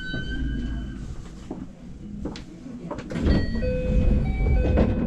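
Train standing at a station platform: low rumble with a few clunks, then louder rumble and a run of short chime notes at changing pitches in the second half.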